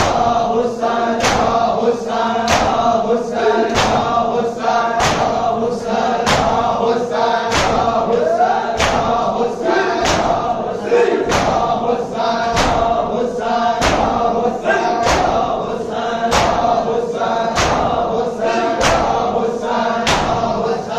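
A group of male voices chanting a mourning noha in chorus, over a sharp rhythmic beat that lands about every second and a quarter.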